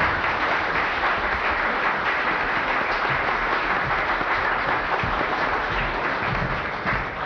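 Audience applauding: dense, steady clapping that begins to fade near the end.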